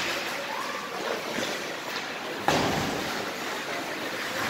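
Hockey rink ambience during play: a steady wash of skate, arena and crowd noise. A sudden knock comes about halfway through, after which a low rumble continues.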